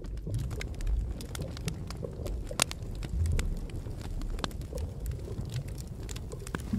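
Ambience track of a crackling fire: irregular sharp pops and crackles over a low steady rumble.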